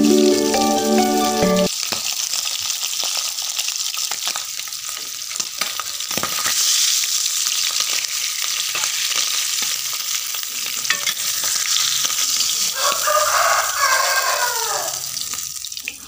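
Pindang fish sizzling as it fries in hot oil in a wok. A rooster crows near the end.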